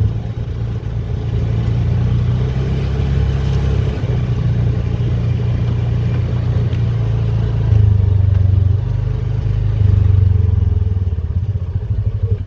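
Small vehicle engine running steadily under way, its note swelling a couple of times with throttle.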